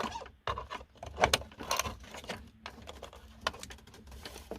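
Irregular small clicks, taps and scrapes of a metal multi-tool blade working against the plastic HVAC control unit as a backlight bulb socket is twisted loose.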